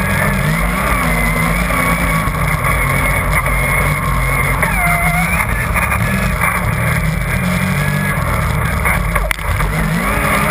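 Yamaha Nytro RTX SE snowmobile running steadily at trail speed. Its four-stroke three-cylinder engine, track and snow noise are heard from a camera on the rear bumper.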